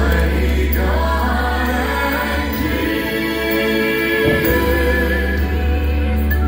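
Southern gospel vocal group of male and female voices singing in harmony over instrumental accompaniment with a strong, sustained bass, heard through the hall's stage sound system.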